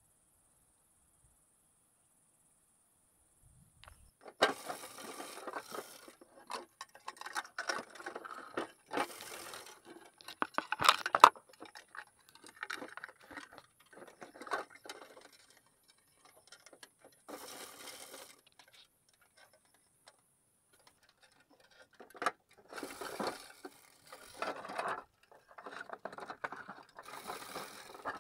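Clear plastic insect boxes being handled: irregular clattering and rustling that starts a few seconds in and comes in bursts with short pauses.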